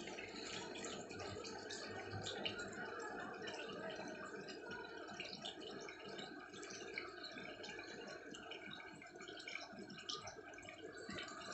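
Faint scratching of a ballpoint pen drawing on the back of sticker art paper: small irregular pen strokes over a low steady hiss.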